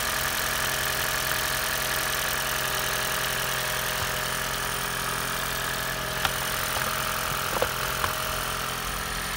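Toyota Prius 2ZR-FXE 1.8-litre four-cylinder engine idling steadily, an even hum with a faint steady whine. A few light clicks come in the second half.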